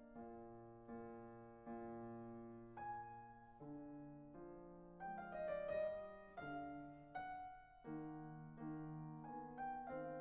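Background solo piano music, unhurried chords that each strike and then fade.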